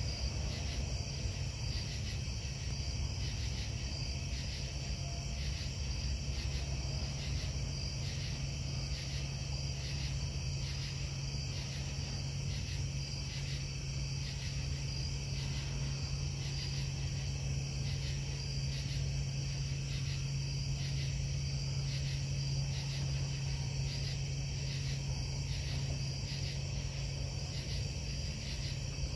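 Steady low industrial hum from the Casting Solutions foundry, with night insects chirping over it in an even, repeating rhythm.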